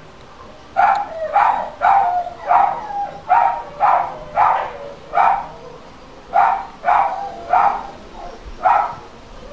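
A dog barking repeatedly, about a dozen barks at roughly two a second, with a short break past the middle: the persistent barking complained of as a noise nuisance.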